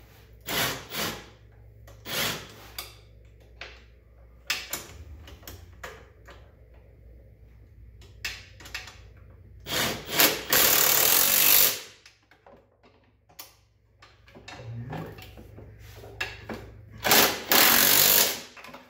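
Handheld power tool running in two bursts of about a second and a half each, about ten seconds in and near the end, tightening the center bolts of an ATV lift kit. Earlier, scattered clicks and knocks of a tool against metal.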